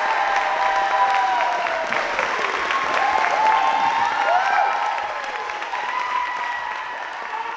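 Audience applauding, with voices calling out over the clapping, dying down toward the end.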